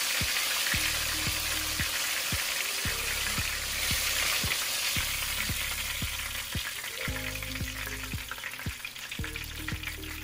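Breaded fish frying in hot oil in a cast-iron skillet: a steady, dense sizzle with fine crackling, easing off somewhat over the last few seconds.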